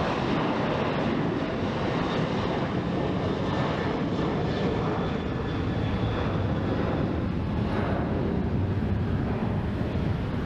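Jet airliner engines running, a steady noise that neither clearly rises nor falls.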